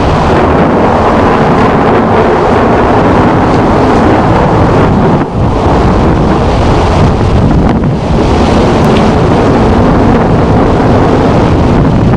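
Loud, steady rushing noise with no clear tone or rhythm, dipping briefly about five seconds in.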